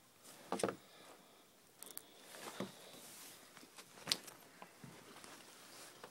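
A puppy scrambling over a sliding door's metal track and a wooden deck: a few sharp knocks and light scuffling of paws and claws, the loudest knock about four seconds in.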